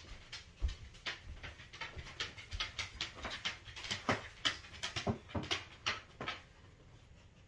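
Irregular light knocks and taps, several a second, as a wooden 1x4 trim board is handled and set in place against the window sill, stopping about six and a half seconds in.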